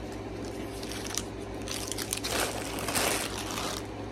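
Chewing candy with a few sharp mouth clicks, then a crinkly plastic bag of Reese's Peanut Butter Cups being handled and rustled from about two seconds in.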